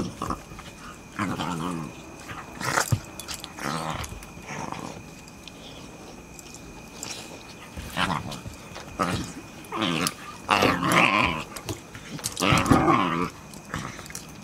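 A boxer puppy and another puppy play-fighting, with irregular bursts of play growling that grow louder in the second half, mixed with snaps and clicks of mouthing and scuffling.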